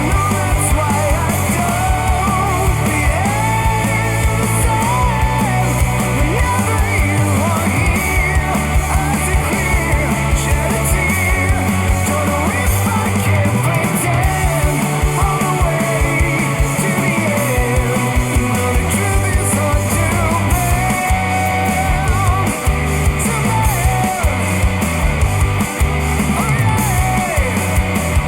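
Rock music with a steady beat, played back through Bowers & Wilkins PX7 wireless noise-cancelling headphones.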